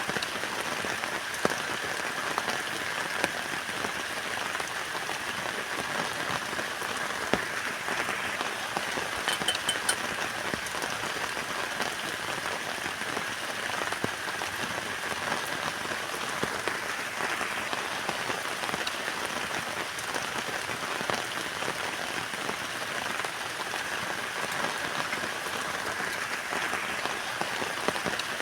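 Steady heavy rain pattering on a tent, a dense patter of drops hitting the fabric.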